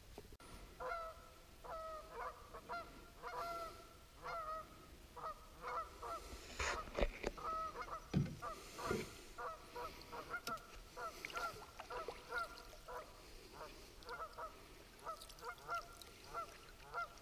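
A flock of geese honking again and again, the calls overlapping, with a few louder sudden noises near the middle.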